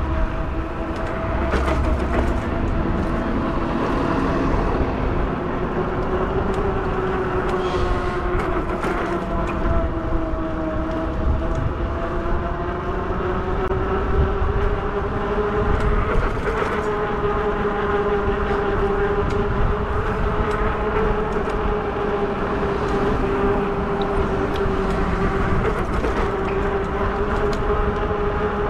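Modded fat-tire e-bike underway: a steady droning whine whose pitch sags about a third of the way in, climbs again and then holds as the speed changes, over a low rumble.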